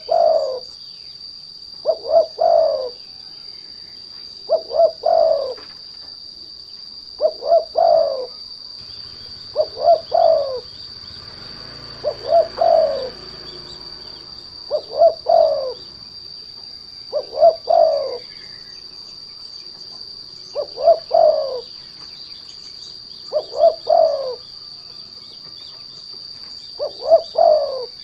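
Spotted dove (derkuku) cooing a short phrase of a few notes about every two and a half seconds, the call a lure bird uses to provoke other doves into calling. Under it runs a steady high-pitched insect drone.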